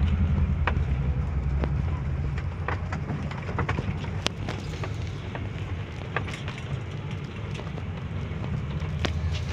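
Motor vehicle engine running steadily with a low hum, with scattered light clicks and knocks.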